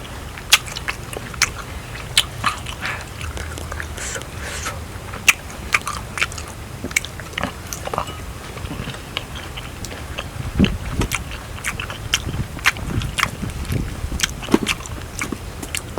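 Close-up eating of grilled fish: wet chewing and biting with irregular smacking and crunching clicks, a few heavier thuds about two-thirds of the way in.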